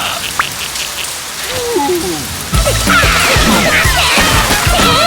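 Cartoon soundtrack: an even hiss with a few squeaky pitch glides, then about halfway through loud music with a heavy bass pattern starts, with wordless squealing cartoon voices and sliding sound effects over it.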